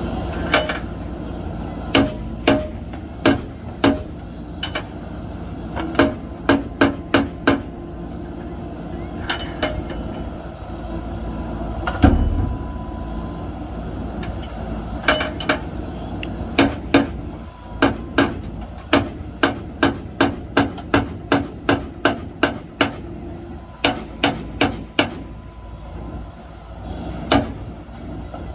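JCB 3DX backhoe loader's diesel engine running steadily under load, with repeated sharp knocks in runs, up to about two a second, and one heavier thud about halfway through.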